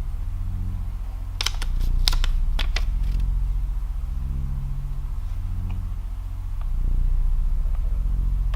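A low, steady droning hum that slowly swells and fades, with a quick run of sharp clicks about one and a half to three seconds in and a couple of faint ticks later.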